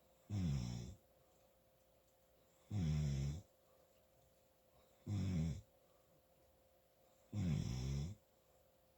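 Really loud snoring: four snores in a steady rhythm, about one every two and a half seconds. Each is a short pitched snore under a second long, with quiet breathing gaps between.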